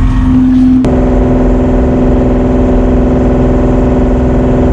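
A fishing boat's engine running steadily under way at low speed. There is an abrupt shift in its tone about a second in.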